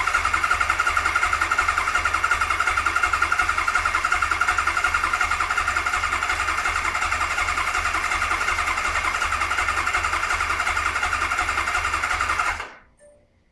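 A 1992 Kawasaki KZ1000P's inline-four being cranked by its electric starter, with an even, rhythmic chugging and a starter whine, and the engine never firing: a no-start. The cranking stops abruptly near the end.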